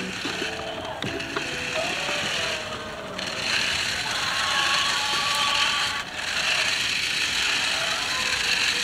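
Remote-control dinosaur stunt car driving on concrete: its small electric motor and plastic gears whirring. The whir drops away briefly twice, about two and a half seconds in and again about six seconds in, as the throttle is let off and applied again.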